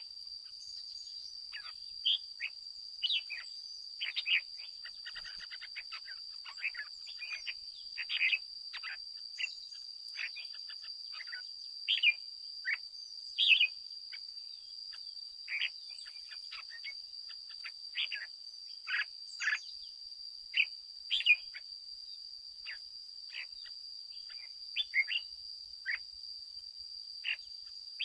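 Red-whiskered bulbul singing: short, sharp chirping phrases repeated every second or so, over a steady high-pitched whine.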